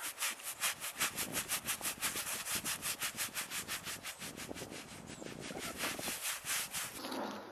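Leather work gloves rubbing briskly back and forth over a goat's coat: a fast, even scratching of several strokes a second that dies away near the end.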